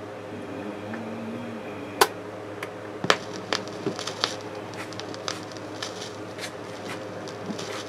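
BSR C129 record changer cycling, its tonearm setting down on the LP: a sharp click about two seconds in, then scattered clicks and pops of the stylus in the lead-in groove through the speakers, over a low steady hum.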